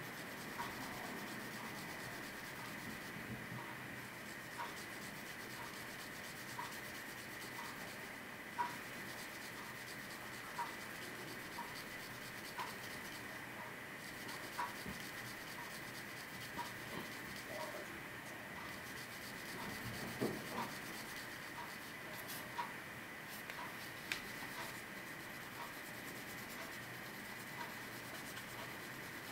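Sandpaper rubbing lightly by hand on a small model-engine tube, a soft, even scratching. A faint, regular ticking runs beneath it at about one and a half ticks a second, with a few sharper clicks.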